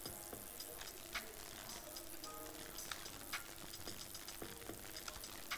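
Faint, irregular clicks of a computer keyboard and mouse over a low steady electrical hum and hiss.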